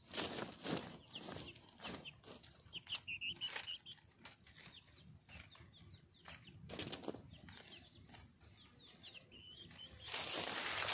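Rustling and flapping in short strokes, with scattered short, high bird chirps. Just before the end a steady rushing noise starts.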